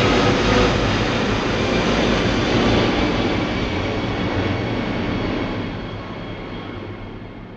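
Jet airliner passing overhead: dense, loud jet-engine noise that holds steady for several seconds, then fades away, the high end dropping first, as the aircraft moves off.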